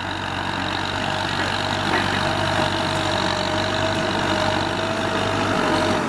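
Kubota M9540 tractor's four-cylinder turbo-diesel engine running steadily under load as it pulls a ripper plough through dry soil, with a steady whine coming in about a second and a half in.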